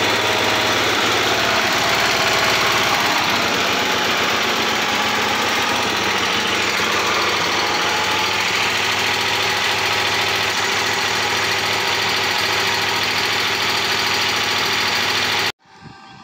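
Single-cylinder 8 HP snowblower engine on a homemade motorised bike running steadily through a car muffler. The sound cuts off suddenly near the end.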